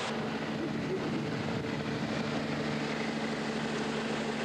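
Steady hum of a fishing vessel's machinery, with a few constant low tones over a broad rush of noise.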